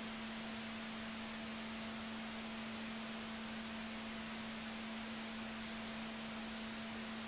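A steady low electronic hum tone over an even hiss, holding one pitch without change.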